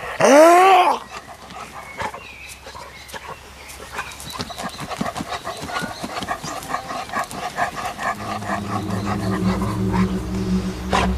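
A dog barks once loudly about a quarter of a second in, then keeps digging in loose soil with quieter rhythmic sounds, about three or four a second.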